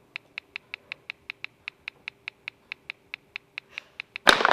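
Smartphone keyboard click sounds, one short click per key tap at about five a second, as a text message is typed. Near the end a loud crackling noise cuts in.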